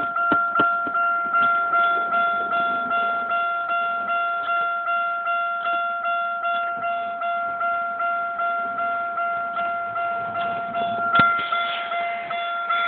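Car's electronic warning chime dinging over and over at about two and a half dings a second, always at the same pitch. A few sharp clicks come near the start, and a louder click comes about eleven seconds in.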